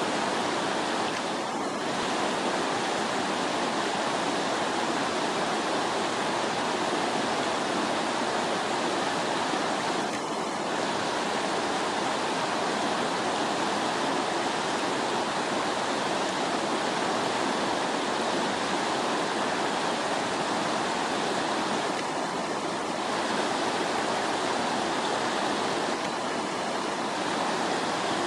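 Fast-flowing river water rushing over rocks: a steady, even roar of running water.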